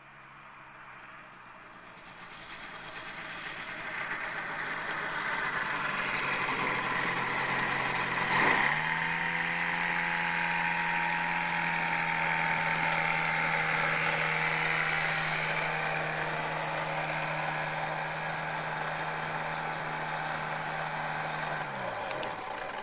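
Pegasus Cyclone AX2000 microlight's engine and propeller, growing louder as the aircraft comes in close. After a click and a jump in pitch about eight seconds in, it runs at a steady idle while taxiing, then its pitch sinks and it stops near the end as the engine is shut down.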